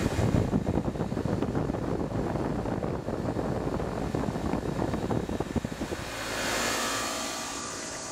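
Outdoor air-conditioner condenser running, its fan blowing air straight onto the microphone in a buffeting rumble. About six seconds in the rumble drops away, leaving a softer hiss that swells and fades.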